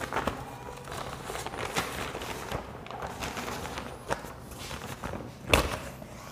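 Board eraser rubbing across a whiteboard in repeated wiping strokes, with one sharp knock about five and a half seconds in.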